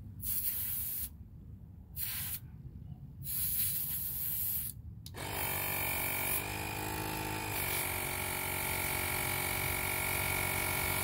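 Several short hisses of air at a car tire's valve stem, then about five seconds in a portable Bullseye Pro tire inflator's compressor starts and runs steadily, its pitch shifting briefly a second or two after starting.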